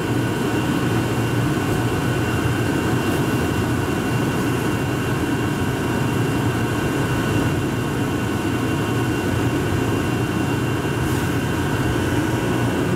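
Rubber-tyred Plane Train automated people mover running steadily through a concrete tunnel, heard from inside the car: an even low rumble with a faint steady whine above it.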